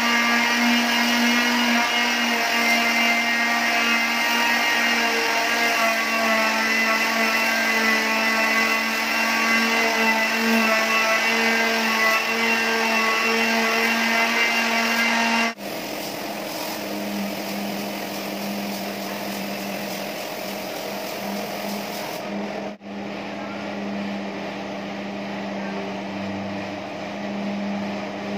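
Steady motor running for a paint spray gun, with a hum of several even tones. It gets quieter and slightly lower at a sudden break about halfway through, and again briefly dips near the end.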